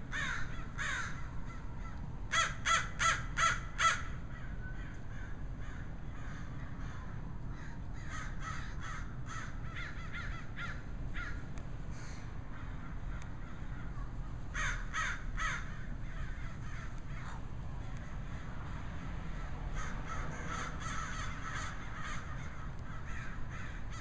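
A flock of crows cawing: a quick run of five loud caws about two seconds in, scattered caws from several birds after that, another short run of three in the middle, and softer overlapping cawing near the end.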